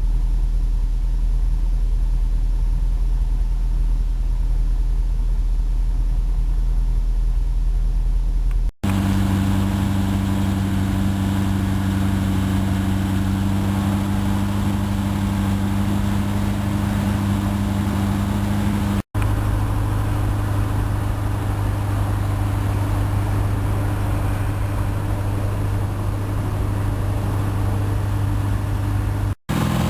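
Chevrolet Corvette C6 V8 idling steadily through a Sniper Racing ShotGun aftermarket exhaust, heard in three edited takes. The first take is a deep, low rumble, and the later takes carry a stronger, steady, somewhat higher drone.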